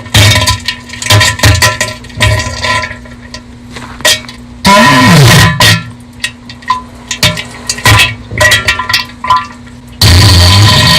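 Bass-boosted diarrhea meme sound effect: a string of loud, distorted wet splattering bursts at irregular intervals, heavy in the bass, with a longer burst about five seconds in. Guitar music starts near the end.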